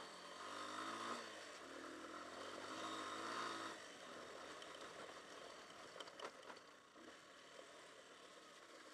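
Hartford VR150's 150cc air-cooled single-cylinder engine running as the bike rides over a gravel track, rising in pitch twice in the first four seconds and then easing off. A few short knocks come around six seconds in.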